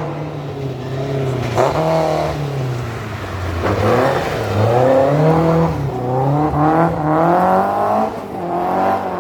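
Rally car engine revving hard, its note rising and falling several times as the throttle is worked, with sharp drops about a second and a half in and again near the end.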